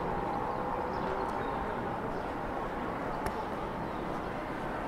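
City street ambience: a steady wash of distant voices and traffic, with one sharp click a little past three seconds in.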